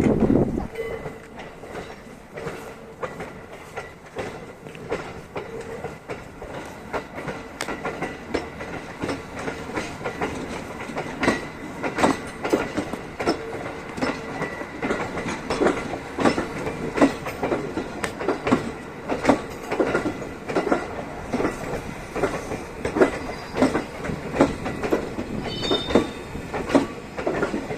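JR West 321 series electric train rolling slowly through a depot level crossing, its wheels clacking over the rail joints, often in pairs. The clacks grow louder and more frequent about ten seconds in.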